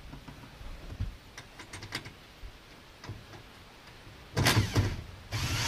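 A few light clicks and knocks of handling, then, about four and a half seconds in, a cordless drill runs twice in short bursts, driving screws into the seat back of a pontoon boat seat.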